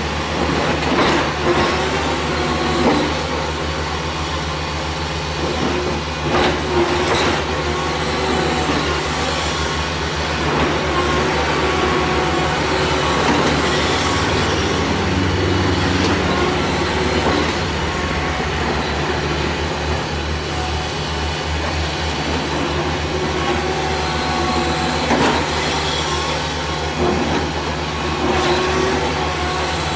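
Caterpillar tracked hydraulic excavator running steadily as it works its boom and bucket, a continuous diesel engine drone with a few sharp knocks.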